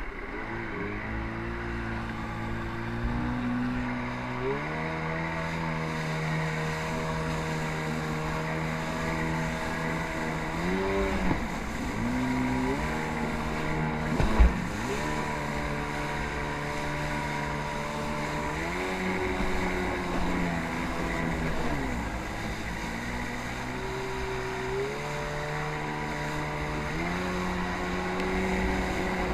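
Jet ski engine running, its pitch stepping up as the throttle is opened and dropping back as it is eased off, several times over, with water and wind noise beneath. A short sharp knock about halfway through.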